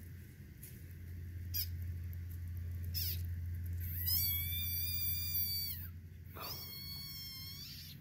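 A frog's distress scream, given while a garter snake holds it in its jaws: one long high-pitched cry about four seconds in, then a shorter one near the end.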